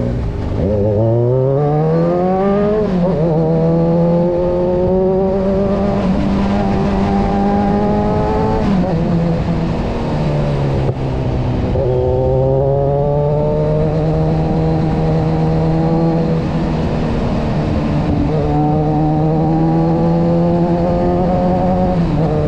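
Kawasaki motorcycle engine heard from on board, with wind rush. It accelerates for about three seconds, shifts up and holds a steady speed, eases off around nine seconds, then runs at a steady cruise.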